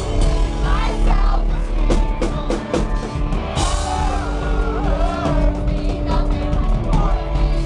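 Live pop-punk rock band playing loudly: a lead singer singing into a microphone over a full band with a drum kit.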